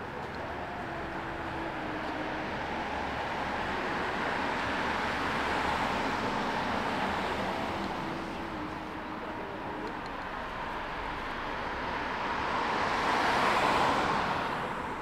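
Road traffic: vehicles passing with a steady tyre-and-engine hiss that swells twice, the second pass louder, peaking near the end and then fading.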